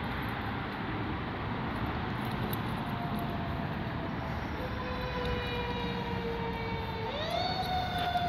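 A faint siren holding a long, steady wailing tone from about three seconds in, sliding up in pitch near the end, over a steady rushing noise.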